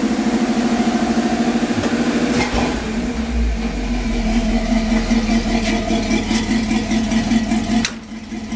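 1955 Chevrolet pickup's engine idling steadily as it warms up, with an even, rapid exhaust pulse. A single clunk comes about two and a half seconds in.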